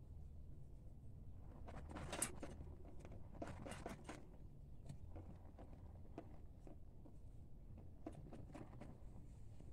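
Faint rustling and scattered small clicks from handling and movement close to the microphone, over a low steady rumble.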